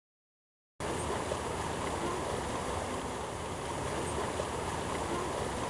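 Steady rush of a fountain's water jets splashing, cutting in suddenly about a second in after silence.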